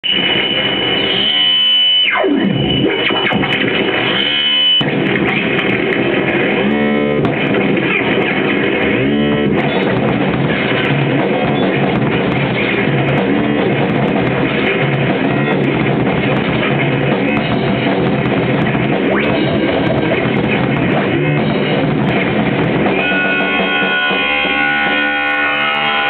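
Live band playing loud, noisy rock music with keyboards. About two seconds in, a sound sweeps steeply down in pitch, and a held chord of steady tones comes in near the end.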